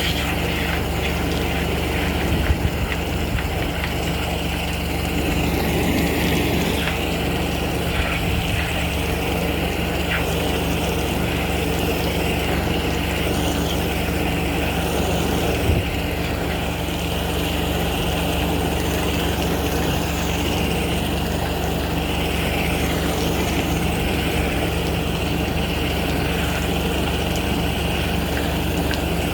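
Engine of a high-pressure drain jetting unit running steadily, with a few faint knocks.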